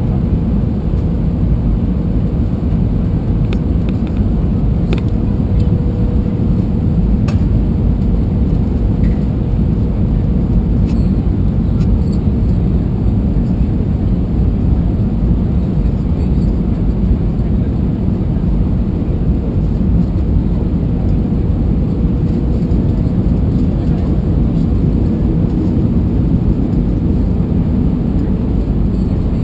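Steady low rumble of engines and airflow heard inside the cabin of an Airbus A320-200 descending on final approach, with a faint steady hum and a few light ticks.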